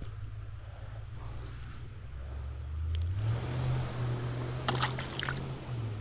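A car driving past, its engine note climbing as it accelerates hard about two seconds in, holding high, then dropping away near the end.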